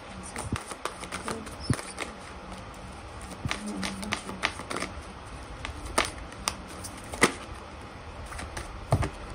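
A deck of tarot cards being shuffled by hand: irregular sharp clicks and slaps of the cards, with a few louder slaps in the second half.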